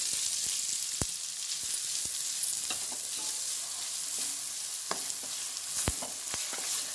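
Sliced onions sizzling in hot oil with ginger-garlic paste in a wok, stirred with a wooden spatula that knocks against the pan a few times.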